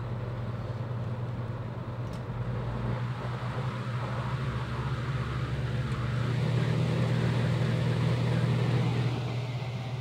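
Mid-1980s McGraw Edison Toastmaster 14-inch box fan (model 144001) running on its low setting: a steady motor hum with the rush of air from its blades, growing a little louder for a few seconds past the middle.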